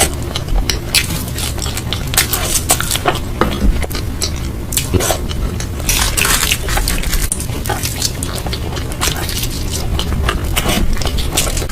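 Close-up eating sounds: a person chewing and biting food, with many quick, irregular wet clicks and smacks.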